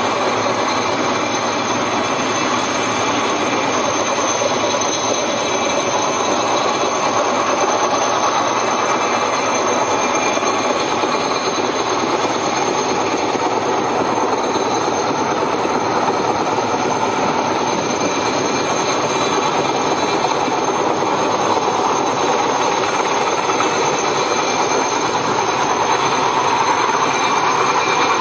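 Sikorsky S-64 Skycrane helicopter hovering with a load: a steady, loud rush of rotor and turbine noise with a thin high whine, holding level throughout.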